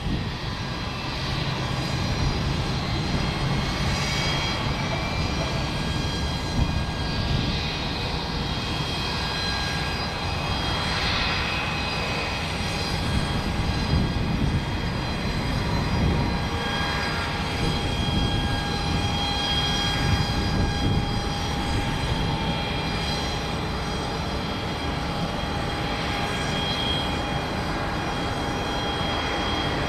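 Antonov An-225 Mriya's turbofan engines running as the aircraft rolls along the runway: a steady jet roar with several high whining tones over it.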